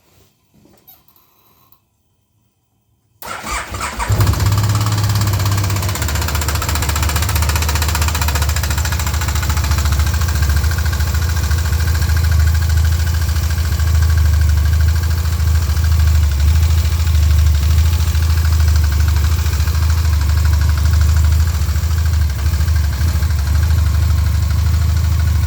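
A 2011 Can-Am Spyder RT's 998 V-twin is cranked and catches about three seconds in, then runs steadily from cold. A rapping noise comes only right after a cold start and not when the engine is warm.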